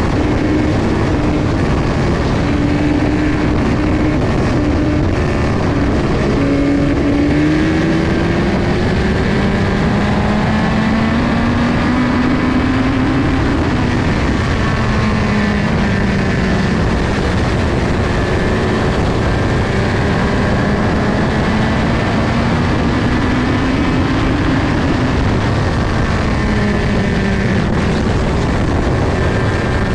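Onboard sound of a USAC midget race car's four-cylinder engine at racing speed, with wind rushing past. The engine pitch climbs for several seconds and then drops off, twice, as the car accelerates and lifts around the laps of the oval.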